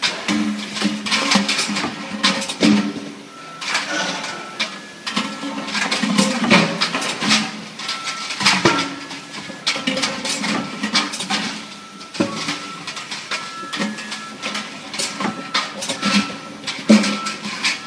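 Automatic labeling machine and slat conveyor running with 25-litre steel pails on it: a steady machine hum with a higher whine that comes and goes, and frequent sharp metallic clanks as the pails knock against each other and the guide rails.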